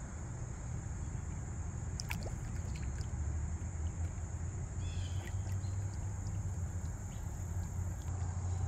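Steady high-pitched chorus of crickets over a low, steady rumble, with a few light clicks about two seconds in and a short run of chirps about five seconds in.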